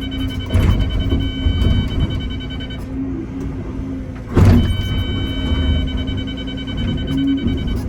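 Excavator's diesel engine running under load with a steady hydraulic whine, which drops out for about a second midway, and two sharp knocks, about half a second in and about four and a half seconds in, as the bucket strikes and scrapes solid shelf rock.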